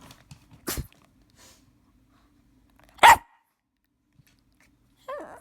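Shih Tzu puppy barking, pestering to be taken for a walk: a short bark under a second in, a loud sharp bark about three seconds in, and a brief call falling in pitch near the end.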